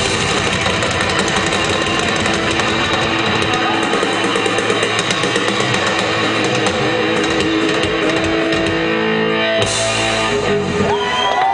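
Live heavy rock band playing instrumentally, with distorted electric guitar and drum kit. About ten seconds in the cymbals stop and held guitar notes ring on.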